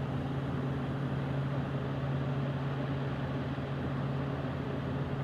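1960s Hotpoint window air conditioner running: its fan blowing air with a steady hum from the compressor, which is running quietly on a low R22 charge.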